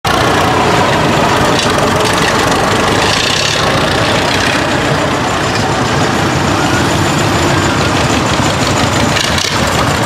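Engines of several vintage Fiat farm tractors running steadily at low speed as they drive past one after another.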